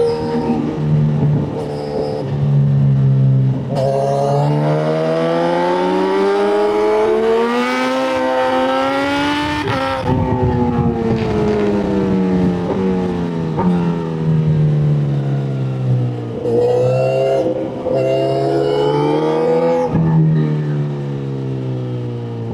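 Motorcycle engine running hard under load, its pitch climbing steadily for several seconds to a peak about ten seconds in, then falling away. It rises and drops again in shorter swells, with brief breaks in the sound at a few points.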